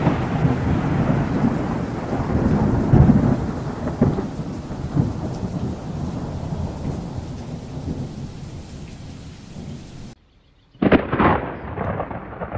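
Thunder rumbling and slowly dying away over steady rain, cut off suddenly about ten seconds in. After a brief silence, a fresh sharp thunderclap cracks and rumbles near the end.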